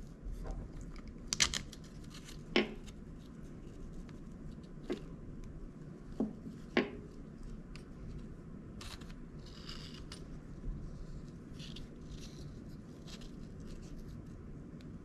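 Small clicks and light scraping of plastic and metal parts as a carburetor, its gasket and the plastic air-filter housing are fitted back onto a Ryobi two-stroke string trimmer's engine and a mounting bolt is worked through them. A handful of sharp clicks in the first seven seconds, then softer scratching and rubbing.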